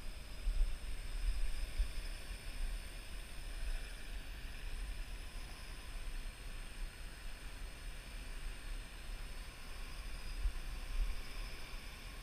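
Wind buffeting the microphone as a low, gusting rumble, over the steady high whine of a Parrot AR.Drone 2.0 quadcopter's motors and propellers in flight.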